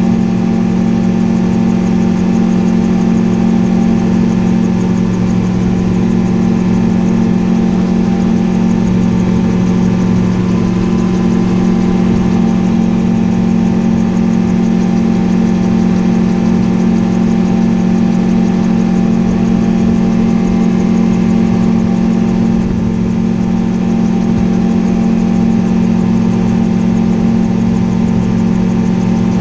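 Gyroplane engine and pusher propeller running steadily in flight, heard from the cockpit as an unchanging drone.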